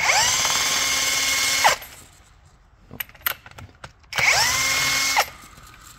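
Cordless drill spinning up and running twice, about a second and a half and then about a second, turning a Bosch alternator to listen for bearing noise. The owner concludes the alternator's front bearing is worn.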